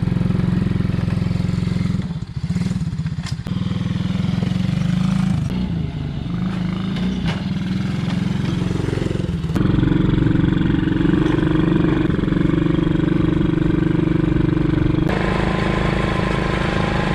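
Motorcycle engine running steadily while riding, its tone shifting abruptly about halfway through and again near the end.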